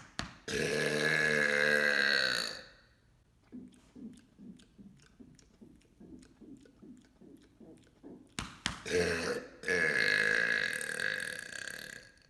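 A man burping: two long, loud burps of about two seconds each, one just after the start and one near the end. Faint repeated sounds come in between.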